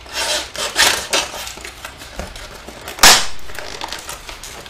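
Kitchen knife stabbing and working at stubborn product packaging. There are a few scraping, crackling strokes in the first second and a half, then one loud, sharp stab about three seconds in.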